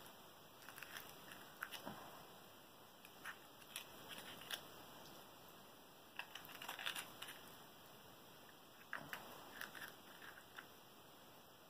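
Faint crackles and small clicks in short clusters, a few seconds apart: an avocado's skin being peeled and its flesh pulled off by hand.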